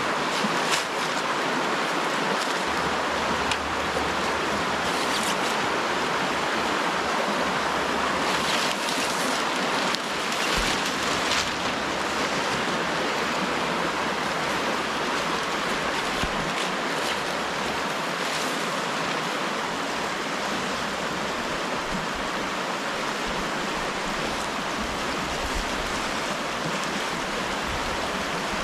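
Steady rush of flowing river water, with a few faint brief rustles about nine to eleven seconds in.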